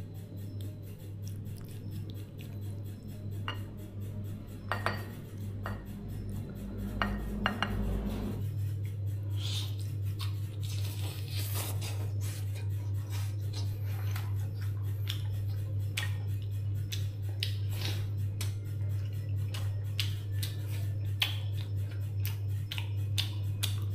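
Dishes and metal utensils clinking and knocking in quick, irregular succession during food preparation, over a steady low hum. The clinks are sparse at first and grow frequent after about eight seconds.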